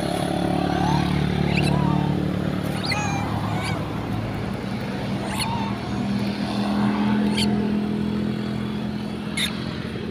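Steady drone of a running vehicle engine, rising slightly in pitch about two-thirds of the way through, with scattered short high chirps and a few sharp clicks over it.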